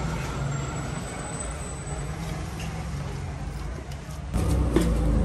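A steady low rumble, with a few sharp clicks near the end as a knife scrapes paste off the rim of a plastic bucket.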